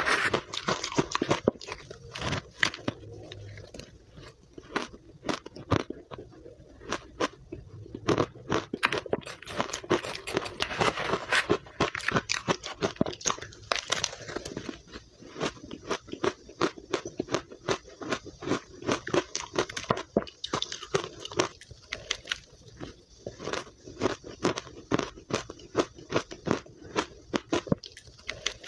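Powdery ice dusted with matcha powder being bitten off a metal spoon and chewed close to the microphone: dense, rapid crunching and crackling throughout.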